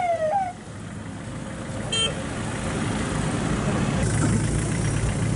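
A vehicle siren repeatedly jumping up in pitch and sliding down, cutting off about half a second in. A short horn toot about two seconds in, then steady vehicle engine and road noise, growing louder near the end.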